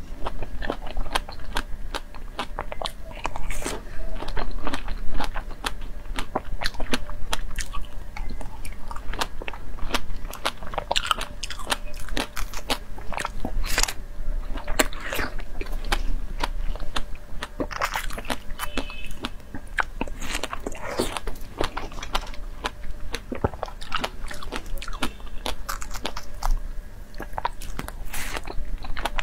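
Fresh whole strawberries being bitten and chewed close to a clip-on microphone: a dense run of small, sharp bite and mouth clicks.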